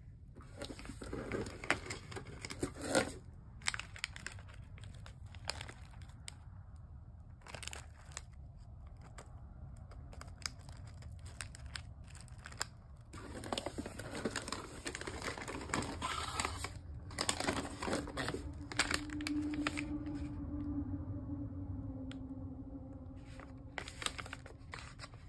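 Plastic snack wrappers crinkling as they are handled, in several irregular bursts, over a low steady hum.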